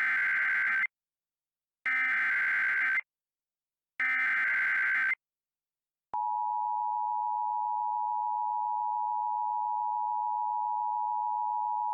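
Emergency Alert System broadcast tones: three bursts of the SAME digital header, about a second each and a second apart, then, about six seconds in, the steady two-tone attention signal, which holds.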